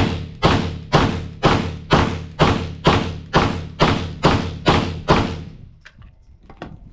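Rapid semi-automatic fire from a Sig Sauer M17 9mm pistol, about two shots a second, each crack ringing out briefly, about a dozen shots before stopping about five seconds in. The pistol cycles through an ETS magazine without a stoppage. Light handling clicks follow.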